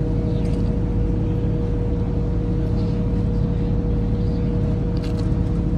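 Passenger ferry's engines running steadily, a low rumble with a constant hum on top, heard from the open deck.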